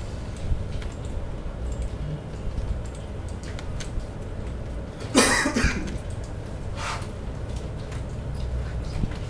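A person coughs once, sharply, about five seconds in, followed by a weaker short cough-like sound a second and a half later, over a steady low room hum.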